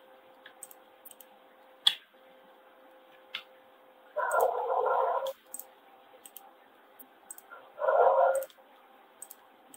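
Computer mouse clicking every so often, over a faint steady hum. Twice, about four and eight seconds in, a louder noise of unclear origin lasts about a second each time.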